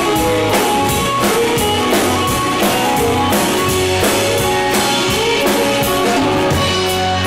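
Live country band playing: strummed acoustic guitar, electric guitar and bass over a drum kit keeping a steady beat.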